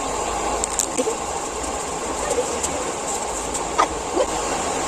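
Steady background hiss and low rumble, with a few faint clicks and small faint whistle-like glides.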